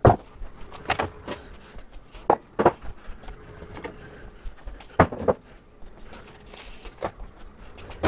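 Food jars, bottles and plastic containers being lifted off refrigerator shelves and set down on a countertop: a string of separate clinks and knocks, some ringing briefly.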